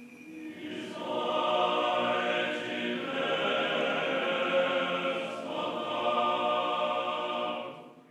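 Orthodox church choir singing a sustained chant in several voice parts. It swells in about half a second in and drops away near the end.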